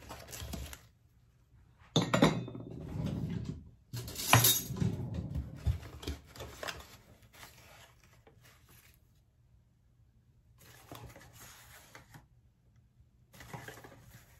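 A metal spoon clinking against a stainless steel saucepan while powder is spooned into it, with two sharp clinks about two and four seconds in, then fainter handling noises of a cardboard box and packet.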